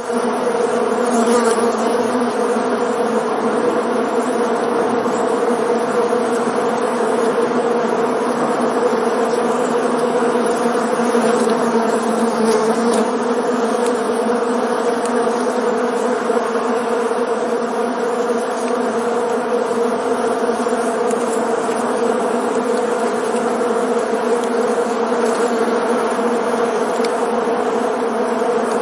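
Bees buzzing in flight: a steady, continuous hum that holds one pitch.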